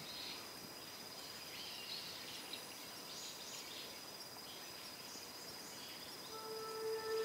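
Faint outdoor ambience: a steady high insect trill with scattered short bird chirps. A held musical note comes in about six seconds in.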